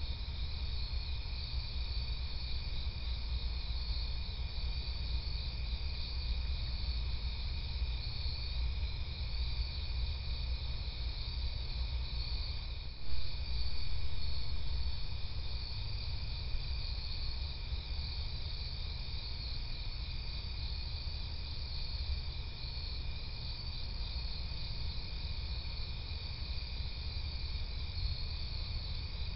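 Crickets trilling steadily in a night-time chorus, a pulsing high-pitched sound, over a low steady rumble. A single short knock sounds about halfway through.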